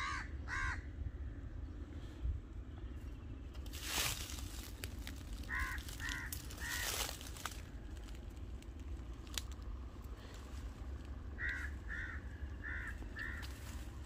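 A crow cawing in short series: two caws, then three about five seconds later, then four near the end. A couple of brief rustling swishes sound between them over a steady low wind rumble.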